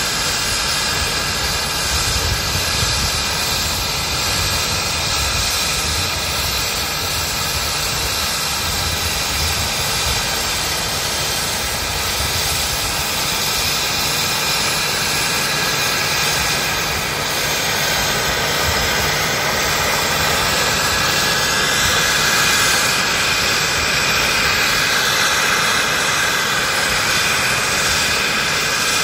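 Radio-controlled scale Alouette II helicopter hovering low, its drive and rotor making a steady, dense whine over a low rumble. The pitch bends up and down slightly in the second half as it moves.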